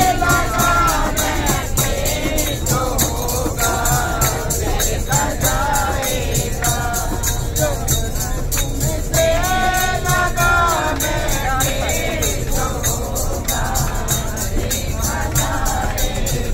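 Men singing a devotional song (bhajan) together, reading the words from printed sheets, over a steady fast percussive beat of about five strokes a second. The low rumble of the bus's engine and road noise runs underneath.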